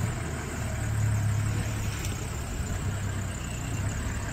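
Safari vehicle's engine idling steadily with a low hum.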